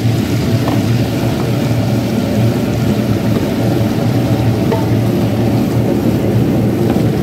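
Tabletop wet grinder running, its two stone rollers turning in the steel drum and grinding soaked urad dal into batter: a steady grinding, churning noise over a steady low motor hum.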